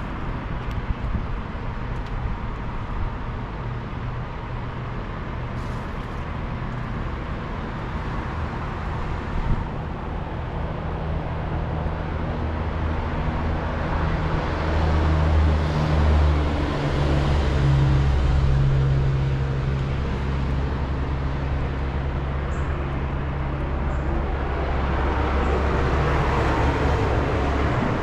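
Traffic on a busy road: a steady rush of passing vehicles, with a vehicle engine's low hum building about halfway through and swelling again near the end.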